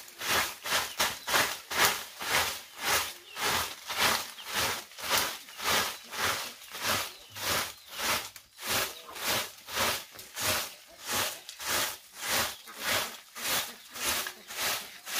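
Rhythmic scraping, about two to three strokes a second, kept up steadily without a break.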